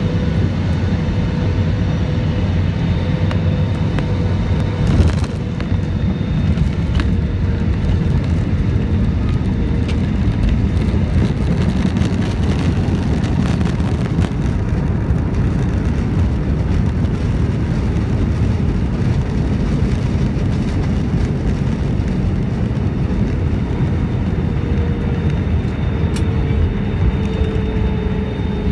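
Airliner cabin noise as the jet rolls along the runway: a loud, steady low rumble of engines and wheels with a steady whine that drifts lower near the end. A brief knock about five seconds in.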